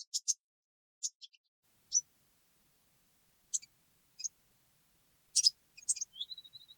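Small birds chirping: short high calls scattered irregularly, with a brief steady trill near the end.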